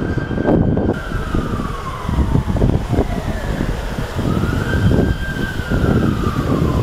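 Emergency vehicle siren wailing, rising and slowly falling in pitch twice, over low street rumble.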